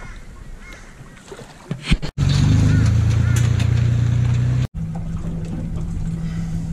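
Montage with two abrupt cuts: first a quiet stretch with faint chirps, then about two seconds in a truck towing an empty boat trailer runs its engine loud and steady, and just before five seconds in this cuts to a quieter, steady low hum.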